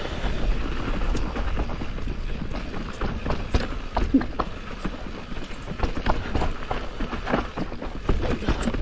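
Mountain bike riding down a rough trail: a dense, irregular clatter of knocks as the tyres hit rocks and roots and the bike rattles, over a steady low rumble.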